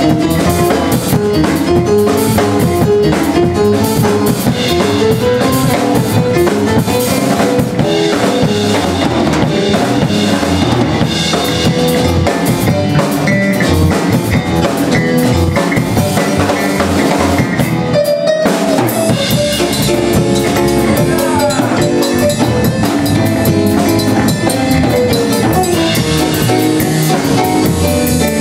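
A live jazz trio playing: electronic keyboard carrying the melody over a drum kit with rimshots and electric bass. About two-thirds of the way through the band breaks off together for a moment, then comes straight back in.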